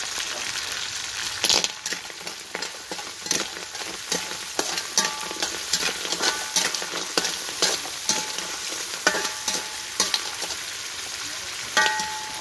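Snails in their shells sizzling in hot oil in a steel wok while a metal spatula stirs them, scraping and knocking against the wok and shells many times, with a brief metallic ring near the end.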